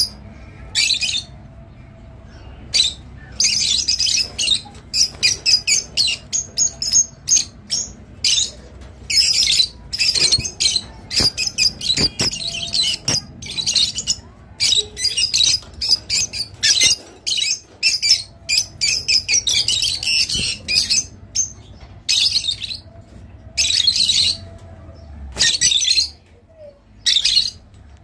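A cage of rosy-faced lovebirds chattering: rapid, shrill chirps and squawks in quick runs broken by short pauses.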